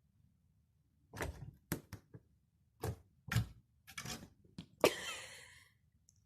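A string of sharp knocks and clatters, about nine in four seconds, the loudest near the end trailing off in a short rattling ring.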